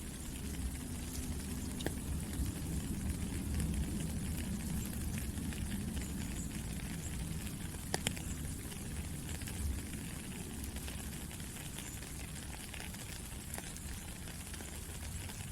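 Steady rain falling, with scattered drop ticks over a low rumble and one sharper tick about eight seconds in.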